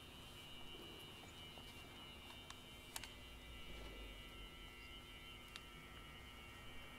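Faint pipe organ cluster held very quietly: several close high pitches sustained together, with the odd one entering or dropping out, and a few soft clicks.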